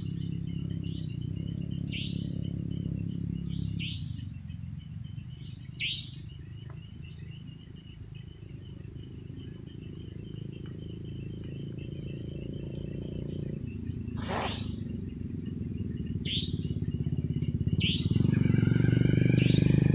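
Evening chorus of frogs and insects: a dense low croaking throughout, growing louder near the end, with short chirps every second or two and fast trains of high ticks. One sharper call about two-thirds of the way through.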